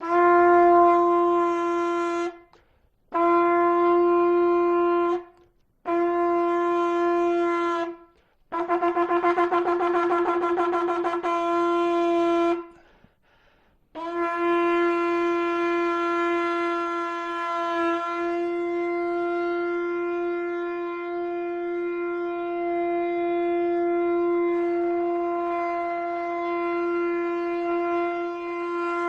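A shofar blown in a series of steady single-note blasts: three of about two seconds each, a fourth with a rapid wavering tremolo, then, about halfway through, one long unbroken held blast.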